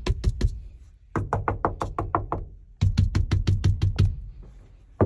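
Quick rapping knocks on the car body's sheet-metal panels to compare panels lined with sound-deadening mat against bare ones. The knocks come in three quick runs with short pauses. In the middle run some knocks ring briefly with a tinny tone, while the others land duller.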